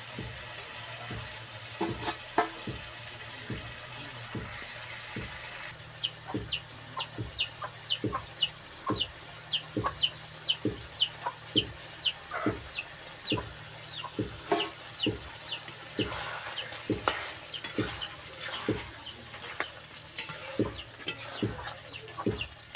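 Metal spatula stirring and scraping chicken and potato curry in a metal wok, knocking against the pan about twice a second over a faint frying sizzle. From about six to thirteen seconds in, a run of high, short falling chirps repeats two or three times a second.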